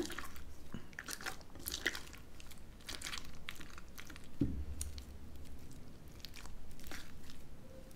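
Clear glue slime being kneaded and pressed with the fingers in a glass dish, giving irregular sticky crackles and small squelches as it pulls away from the glass. A soft thump about four and a half seconds in.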